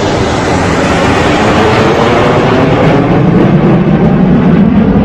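Jet engines of a fighter-jet formation flying past overhead: a loud, steady roar that grows louder and deeper over the last couple of seconds.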